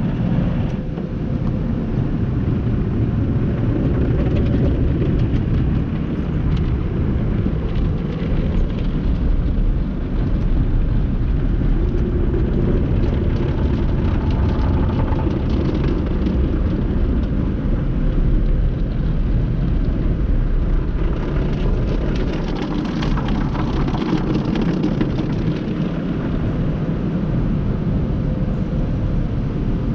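Tunnel car wash heard from inside the car's cabin: a steady, loud rumble of water spray and spinning cloth brushes washing over the body and windshield, with a stretch of denser spattering and slapping about two-thirds of the way through.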